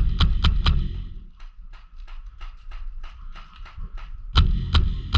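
Airsoft guns firing single shots: a quick string of four sharp cracks at the start, scattered fainter shots in the middle, and two more loud cracks near the end.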